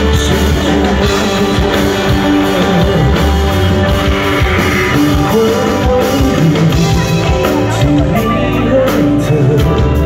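Rock band playing live through a concert PA, heard loud from within the crowd: electric guitar over drum kit and bass in a passage without lyrics.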